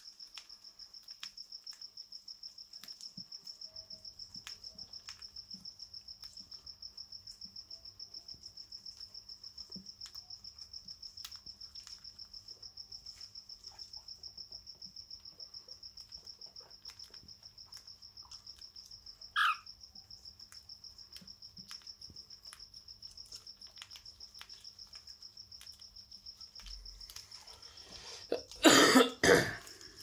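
Cockatiels pecking at seed feed, faint scattered clicks, with one short falling chirp about two-thirds of the way through. Over it runs a steady high-pitched, rapidly pulsing trill. Near the end come two loud bursts.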